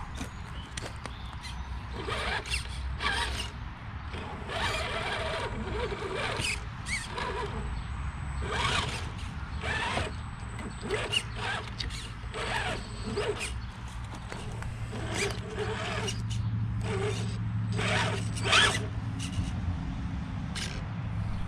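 Redcat Gen8 scale RC crawler's electric motor and gearbox whining in short, irregular blips of throttle, with the tyres scrabbling and scraping on rock and wood as it climbs.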